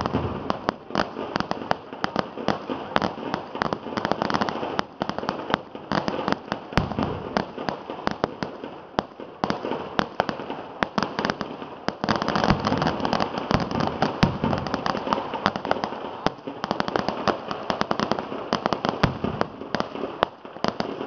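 Vedikkettu ground firecrackers going off in a dense, unbroken barrage. Sharp bangs and crackles follow one another several times a second without a pause.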